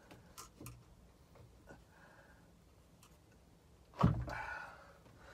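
A few light clicks as the metal starter clutch parts are handled and seated on the crankshaft, then a single knock about four seconds in, the loudest sound, followed by brief rustling.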